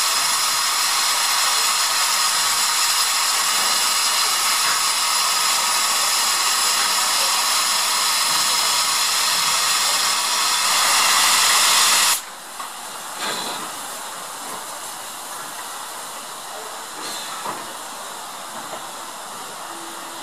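Steam tank locomotive (LNER Class Y7 0-4-0T No. 985) letting off steam: a loud, steady, high hiss that swells slightly, then cuts off suddenly about twelve seconds in, leaving a much quieter hiss of escaping steam.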